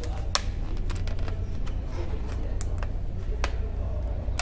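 Clear plastic food packaging being handled, with a scatter of small sharp crackles and clicks as the clamshell lid is fingered, over a steady low hum.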